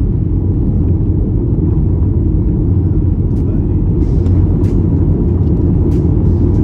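Car interior noise while driving: a steady, loud low rumble of engine and tyres on the road heard from inside the cabin, with a few faint clicks.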